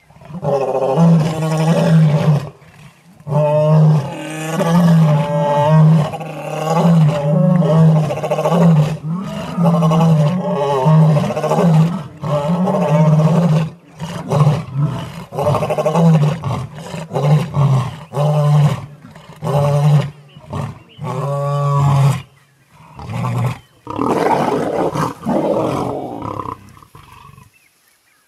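Lions growling and snarling over a downed Cape buffalo, in loud repeated bouts of a second or two each with short breaks between them.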